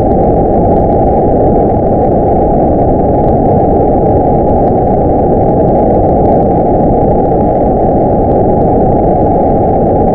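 Sci-fi 'dimensional distortion' sound effect: a loud, steady, muffled rumble of dense noise with all its weight in the low range, without pitch, rhythm or swells.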